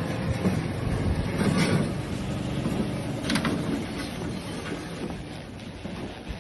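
Engine of a utility vehicle running as it drives along, a steady low rumble, with a couple of brief knocks.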